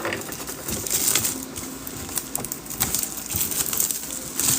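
Packaging being handled and opened: crinkling, rustling wrap with many irregular small clicks and taps, and a sharp click right at the start.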